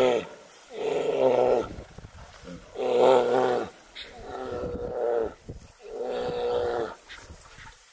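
Brown bear sows roaring at each other in a fight: a run of long, pitched roars, about one every second and a half.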